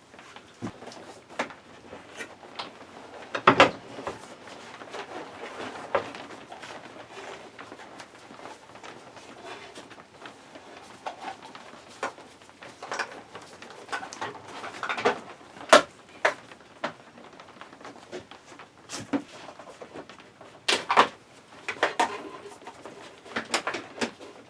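Irregular clicks, knocks and rubbing from hands working a car seat's upholstery cover off its frame, with a few sharper knocks scattered through.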